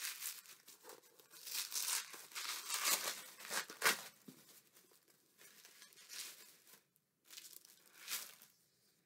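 Paper wrapping being torn open and crinkled off a book by hand, in a series of irregular ripping and rustling bursts that thin out near the end.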